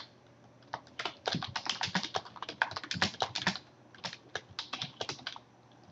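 Typing on a computer keyboard: a run of quick, irregular keystrokes starting about a second in and stopping near the end.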